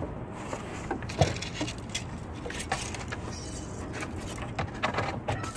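A dog moving and sniffing right beside the camera on the ground: scattered clicks and rustles, with one louder knock about a second in, over a low steady rumble.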